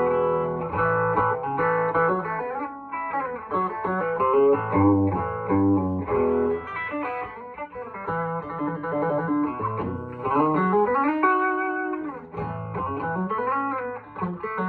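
Electric guitar with a single P90 pickup, played straight into an amp at a low setting with its volume and tone fully up: a clean passage of single notes and chords, with a note sliding upward partway through.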